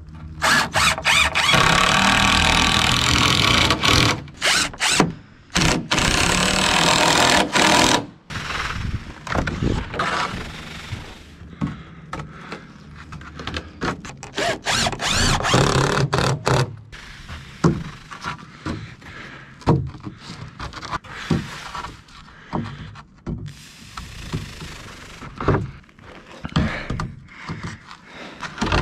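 Cordless drill driving screws into wooden boards in several long runs during the first eight seconds, then shorter runs later on, between knocks and thumps of boards being handled.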